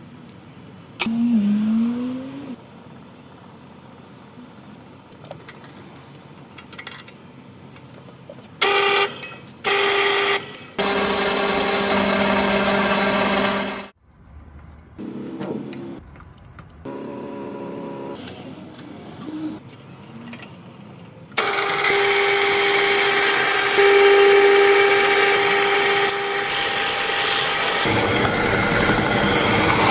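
Drill press motor spinning a homemade sanding drum: two short starts about nine and ten seconds in, a run of a few seconds that stops suddenly about fourteen seconds in, then a steady run with a fixed pitched hum from about twenty-one seconds on. Quieter clicks and handling noises from fitting the drum fill the gaps.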